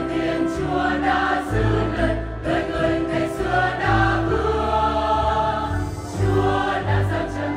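Church choir singing a Vietnamese Catholic Christmas hymn in several voice parts over an instrumental accompaniment with sustained bass notes that change about every second.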